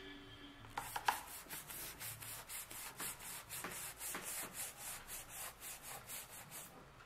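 Rapid rhythmic scrubbing of a fridge's rubber door gasket, about three to four strokes a second, starting about a second in and stopping just before the end.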